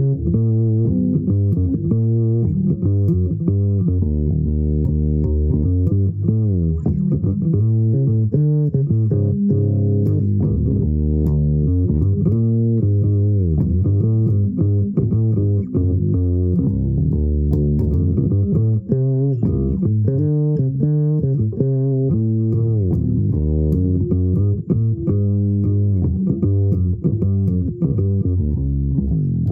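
Solo bass guitar playing an improvised line: a continuous stream of plucked notes, with no drums or other instruments.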